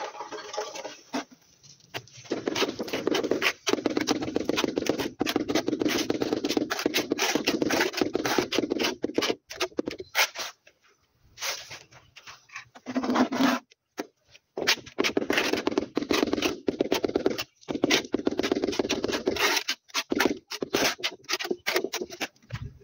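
Large ceramic wall tiles being rubbed and worked back and forth by hand into tile adhesive, a fast continuous scraping rub in stretches with short pauses.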